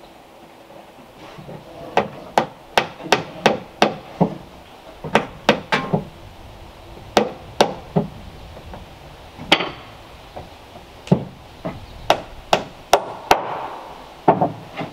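Hammer striking wood in runs of sharp blows, two or three a second, broken by short pauses.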